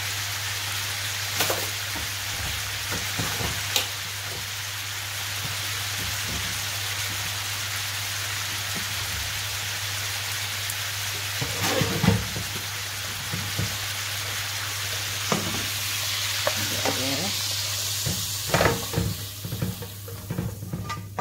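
Pieces of lamb sizzling in a frying pan, a steady hiss with an occasional knock of the wooden spoon. In the last couple of seconds the sizzle dies down as the pan comes off the heat, and the wooden spoon knocks and scrapes the meat out into a metal tray. A steady low hum lies under it all.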